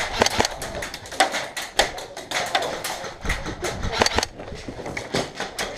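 Airsoft guns firing: a long, irregular run of sharp clicking shots, several a second.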